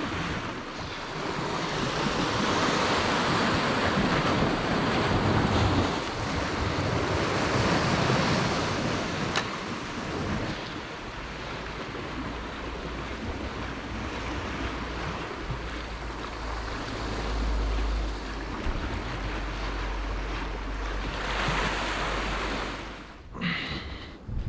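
Sea waves washing and breaking against the rocky shore below, a continuous rushing, louder in the first half. Wind buffets the microphone with a low rumble through much of the second half.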